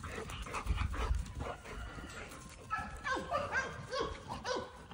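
American Bulldogs at rough play: a run of short, high yips and whines with falling pitch in the second half, over scuffling noise.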